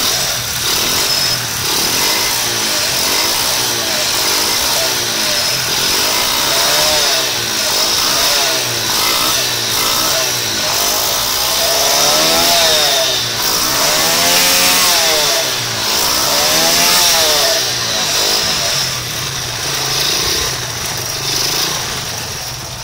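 Honda Prima motorcycle's four-stroke engine, running with Fanta in place of engine oil, revved again and again: short rises and falls at first, then wider revs about halfway through, easing off near the end. The engine sounds somewhat rough.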